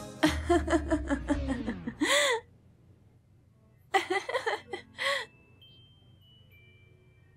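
A person laughing in two short bursts, the second about a second and a half after the first.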